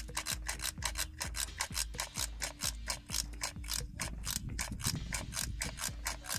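Hand oil pump worked in quick, even strokes, about three to four a second, each stroke a ratcheting click, pushing new gear oil through a hose into a differential's fill hole.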